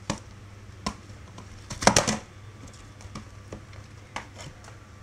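Cardboard smartphone retail box handled and its lid lifted off by hand: a few sharp clicks and taps, with a loud burst of crackling about two seconds in.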